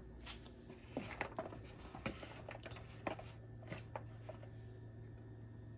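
A metal spoon scraping and tapping in a plastic bowl of kidney bean filling, a few faint light clicks over a steady low hum.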